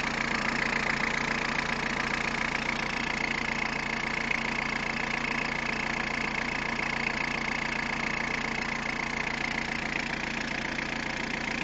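Peugeot 106 1.5 diesel engine idling steadily, with a steady high-pitched whine running through it.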